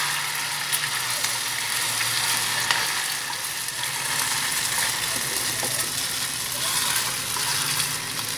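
A freshly added batch of udon noodles deep-frying in shallow oil in a small saucepan, sizzling steadily while wooden chopsticks stir them.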